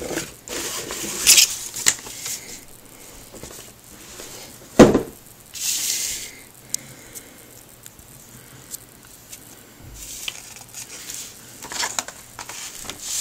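Paper and cardboard rustling as a model kit's instruction manual is slid out of its box and its pages are flipped through, in scattered bursts. One sharp thump about five seconds in is the loudest sound.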